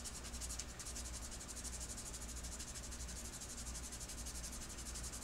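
Sanding stick rubbed in quick, short, even strokes over a small plastic model-kit part: a faint, fast rasping that smooths the piece.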